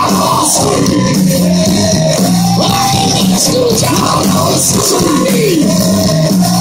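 Live hard rock band playing loud through a PA, electric guitars and drums together, with several sliding notes in the middle.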